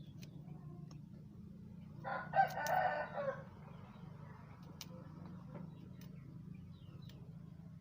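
A rooster crows once, about two seconds in, for about a second and a half, over a steady low hum.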